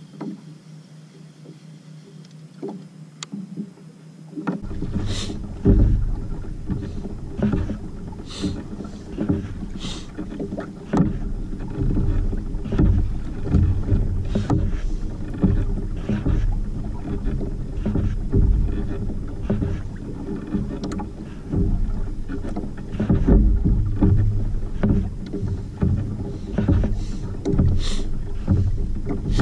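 Water slapping and splashing against a Hobie kayak's hull as it moves over a light swell, with wind rumbling on the microphone. The sound turns much louder about four and a half seconds in, and after that it is a steady rumble broken by frequent irregular knocks and splashes.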